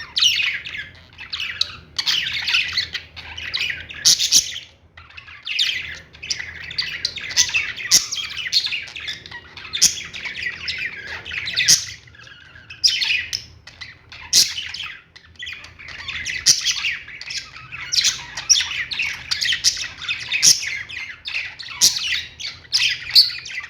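A crowd of caged lovebirds and parakeets chirping and squawking, many birds at once and without a break, with sharp, loud calls standing out every second or so.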